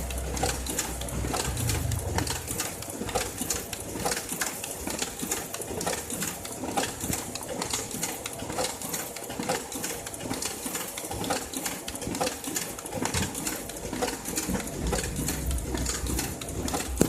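Photocopier running, a steady rhythmic mechanical clatter of many quick repeated strokes.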